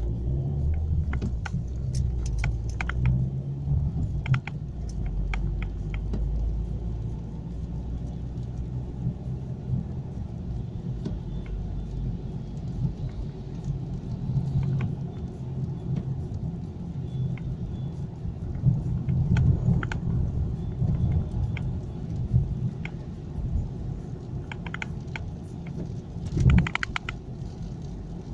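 Car driving, heard from inside: a steady low rumble of engine and road noise, with scattered light rattles and clicks and a louder clatter of them about 26 seconds in.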